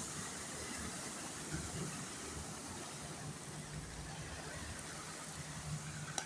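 Heavy rain falling and floodwater running, a steady hiss, with a low steady hum of vehicle engines beneath it.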